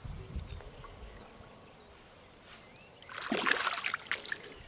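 A small carp being released thrashes and splashes in shallow water at the muddy river edge, a loud splashy burst lasting about a second and a half from about three seconds in. A low rumble comes first, near the start.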